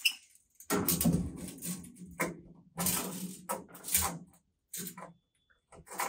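Scraping and rattling of a steel tape measure being pulled out and pressed against the inside of a chest freezer, in two stretches of about a second and a half each, then a few short scrapes.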